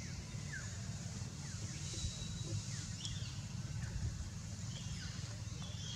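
Outdoor ambience: a steady low rumble with several faint, short, falling chirps from birds scattered through it.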